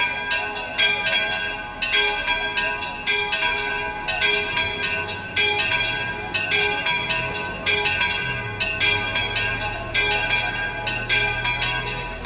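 The two church bells of a bell gable ringing together, struck in quick overlapping strokes about two or three times a second, each stroke ringing on under the next. A faint low hum sits underneath in the second half.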